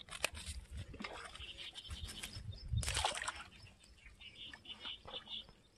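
Plastic bag rustling with a caught fish in it, then a splash about three seconds in as the bag is dropped into the shallow pond water. Faint high chirps near the end.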